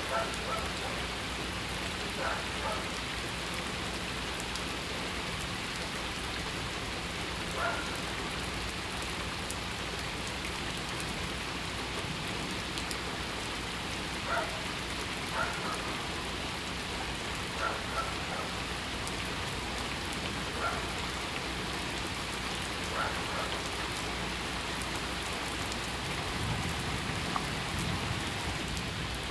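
Light rain falling on a flooded street, a steady even hiss of water, with a few brief faint blips every few seconds.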